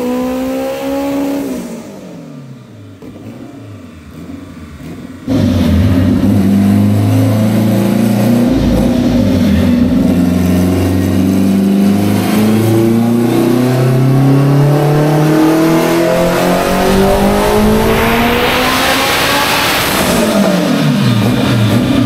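Turbocharged Nissan Sunny's engine being run hard on a chassis dyno. Near the start the revs rise and fall away. About five seconds in the engine comes back loud, and the revs climb steadily for several seconds before dropping off near the end as the pull finishes.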